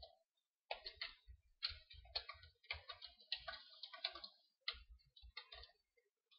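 Faint computer keyboard typing: an uneven run of key clicks starting just under a second in and thinning out near the end.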